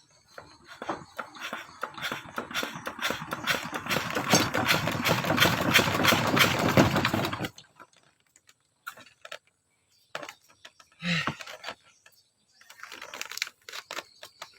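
A machine running with a rapid, even clatter that builds up over several seconds and stops abruptly about seven and a half seconds in, followed by scattered clicks and knocks.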